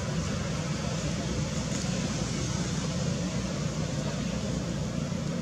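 Steady background rumble with hiss, unchanging in level, with no distinct events.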